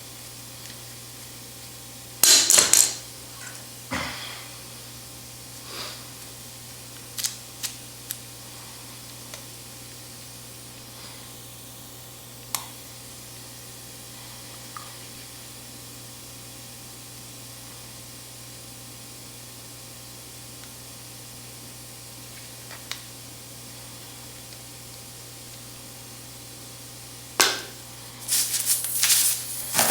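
Scattered clinks and clatters of small metal hand tools being handled, loudest in a short cluster about two seconds in and in a busier run near the end, over a steady low hum.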